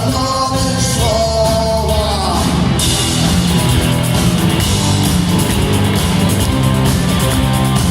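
Rock band playing: a sung line is held and ends a little over two seconds in, then guitars, bass and drums carry on without a voice, the cymbals brighter from about three seconds.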